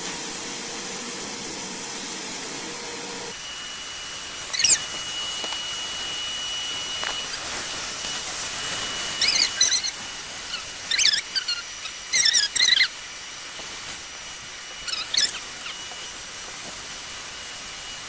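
Multipro wet-and-dry canister vacuum cleaner running steadily, with several clusters of short, high-pitched squeaks that sweep downward, starting about four seconds in.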